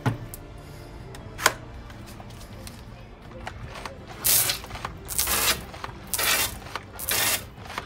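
X-Shot Hyperload toy water blaster squirting water in four short hissing spurts, about one a second, starting about four seconds in, after a single sharp click about a second and a half in. Background music plays underneath.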